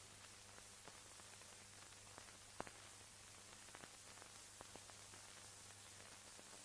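Near silence: the faint hiss and low steady hum of an old film soundtrack, with scattered clicks. One click about two and a half seconds in is sharper than the rest.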